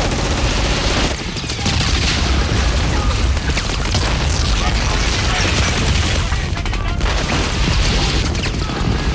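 Loud battle sound effects, booming explosions and crackling gunfire over a heavy rumble, mixed with music.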